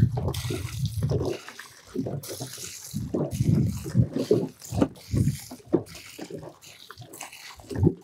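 Water poured from a jerrycan splashing and splattering unevenly onto the gravel and stones of a filled gabion basket.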